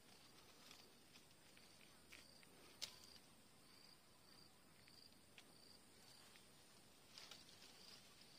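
Faint, even insect chirping, about two short high chirps a second, with a few sharp clicks of hand pruning clippers snipping orange stems. The loudest click comes about three seconds in.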